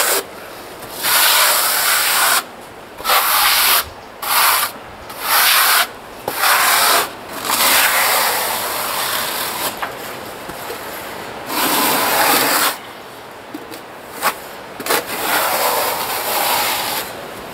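Steel trowel scraping cement-based adhesive across a wall being meshed, in a series of separate strokes of a second or so each, with short pauses between them.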